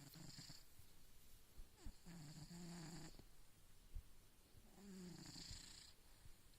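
A tomcat snoring in his sleep: three faint snoring breaths a few seconds apart, each a low buzz with a hiss.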